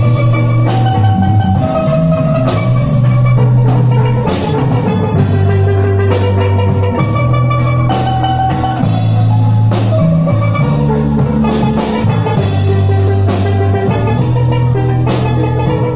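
A steel band playing: steel pans ringing out a melody and chords over a drum kit and guitar, with a steady low bass line that changes note every second or two.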